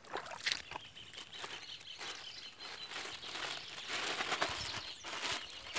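Light, irregular splashing and rustling in shallow water among pond-edge reeds, with soft crackles coming every fraction of a second.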